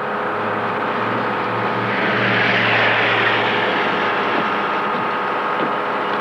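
Steady engine and road noise of a moving vehicle, with a constant hum under it.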